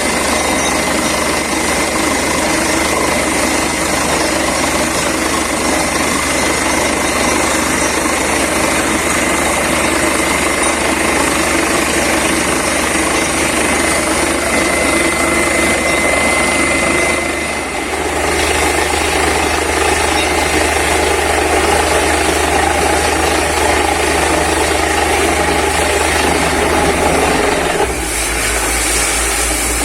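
Borewell drilling rig and its air compressor running at full power: a loud, steady mechanical din with a low hum underneath. The sound changes abruptly about two-thirds of the way through and again near the end.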